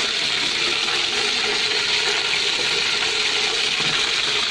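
Hot oil sizzling steadily around a whole chicken deep-frying in a pot.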